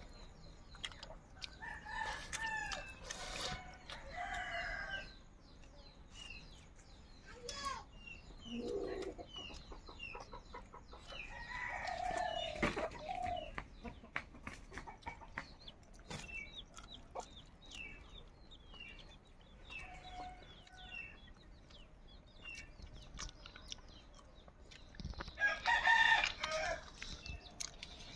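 Chickens clucking and a rooster crowing, with the loudest call near the end, over steady chirping of small birds.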